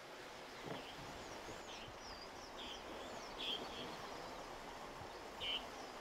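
Quiet outdoor ambience: a steady faint hiss with birds calling, a series of short chirps and a few quick high whistles scattered through the first five and a half seconds.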